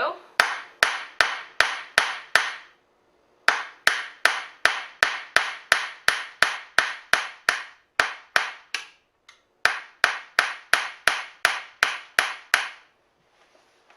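Hammer tapping a pin to drive it out of a Macomber loom's wooden lamm support beam: sharp, even blows about two and a half a second, in three runs with short pauses between, the last run ending near the end.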